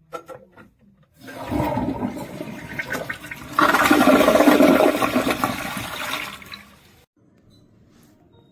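A rush of water that starts about a second in, swells louder midway and dies away after about five seconds.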